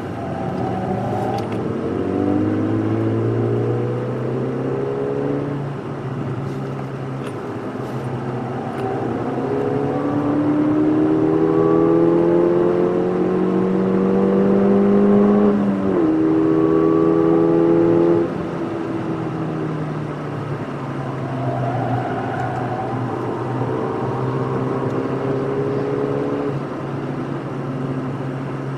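Ford Fiesta ST's turbocharged 1.6-litre four-cylinder engine heard from inside the cabin under hard acceleration on track. The engine note climbs in pitch, falls back, then climbs again to its loudest about fifteen seconds in. It drops away sharply around eighteen seconds and runs more evenly after that.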